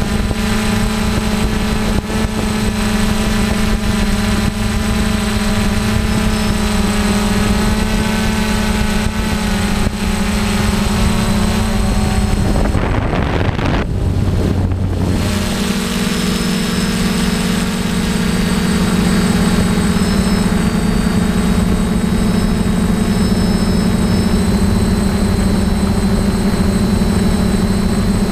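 Six brushless motors and propellers of a DJI F550 hexacopter humming steadily in flight, heard from a camera mounted on the airframe. About halfway through, the motor tones waver and break up for a few seconds, then run steady again.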